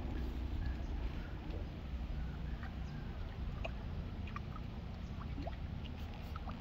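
Steady low rumble, like wind on the microphone, over faint trickling creek water, with scattered small ticks and drips.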